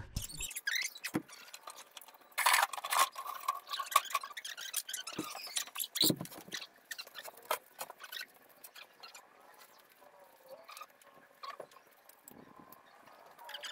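Wooden 2x4 framing lumber being handled and stood up as a wall frame: irregular knocks, clatter and brief squeaks of the boards, busiest in the first few seconds with a thump about six seconds in, then sparser ticks.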